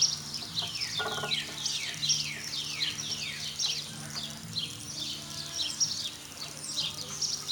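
Birds chirping outdoors: a rapid run of short high calls, each sliding down in pitch, about three a second.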